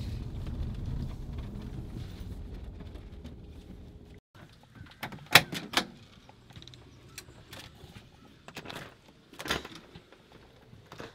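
Low engine and road rumble inside a Ford SUV's cabin as it rolls to a stop, cutting off about four seconds in. Then a storm door's latch clicks sharply twice as the door is pulled open, with a few lighter clicks and knocks near the end as an inner door's knob is turned.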